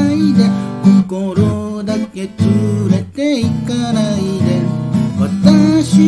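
Steel-string acoustic guitar strummed in chords, with a man's voice singing along in long, wavering notes.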